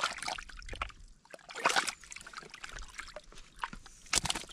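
A hand splashing and sloshing in shallow muddy water in a small hole in the mud, groping for fish. Water trickles between several irregular splashes, the loudest about halfway through and again near the end.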